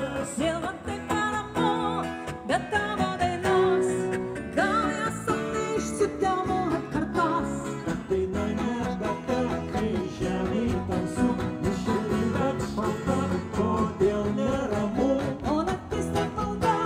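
Live band playing amplified through stage speakers: a singer over strummed acoustic guitars and an electric guitar, in a country-folk style.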